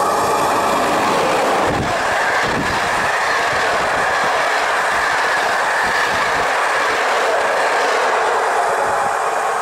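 A passenger train hauled by an EP07 electric locomotive passing close at speed: a loud, steady rush of wheels on rail, with the clatter of bogies over rail joints, heaviest about two seconds in as the locomotive goes by.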